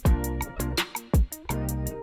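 Hip-hop background music with a steady beat: deep booming kick drums, a sustained bass line and ticking hi-hats.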